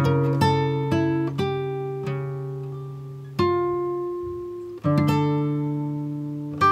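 Background music: plucked acoustic guitar, notes ringing out and fading, slowing to a few long-held notes mid-way before quicker picking resumes near the end.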